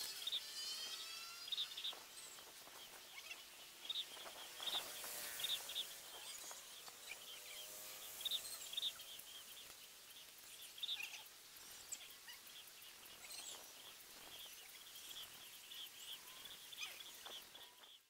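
Faint outdoor ambience of small birds chirping: many short, high chirps at irregular intervals.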